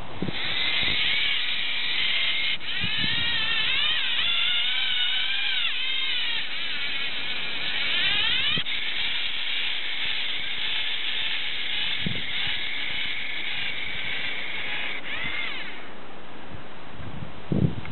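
Lego Mindstorms NXT motor driving the winder's plastic gears and line spool: a high motor whine that wavers and glides in pitch. It starts just after the beginning and stops about two seconds before the end.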